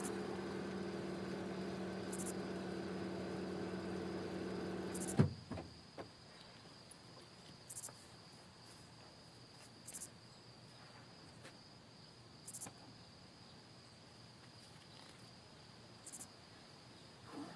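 A steady low hum with two held tones, like a car idling heard from the cabin, stops at a sharp thump about five seconds in. After it, quiet evening ambience with short high-pitched insect calls repeating every two to three seconds.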